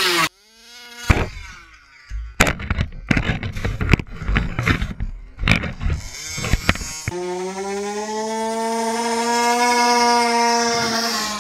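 Engine of a Rovan Baja RC buggy, a high buzz that cuts off suddenly as the buggy hits the pumpkin and then winds down. About two seconds in comes a run of irregular knocks and clatter from the impact and tumbling, followed by the engine buzzing steadily again, its pitch sagging slightly near the end.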